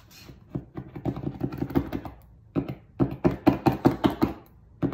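Paint marker's tip tapped rapidly against paper on a tabletop, in two bursts of about six or seven quick knocks a second: pumping the nib to get the paint flowing.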